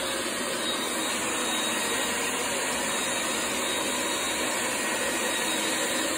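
Heavy-duty wet/dry shop vacuum running steadily as it sucks up wet floor-stripper slurry from vinyl composition tile: an even rush of air with a thin, high motor whine.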